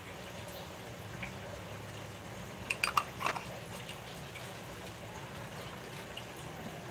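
Water poured out of a small glass jar into a plastic basin, with a short cluster of splashes and drips about three seconds in. A faint low hum sits underneath.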